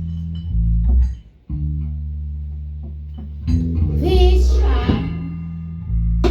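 Live band music: bass guitar and guitar holding low notes, breaking off briefly a little over a second in, with a voice singing a wavering phrase around the middle.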